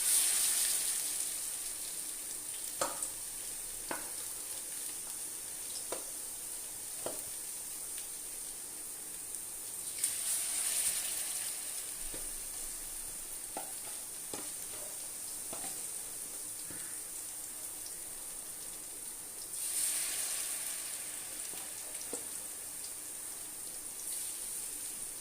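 Marinated chicken pieces sizzling as they shallow-fry in hot oil on a tawa. The sizzle swells three times, about ten seconds apart, as more pieces go into the oil, with a few light clicks in between.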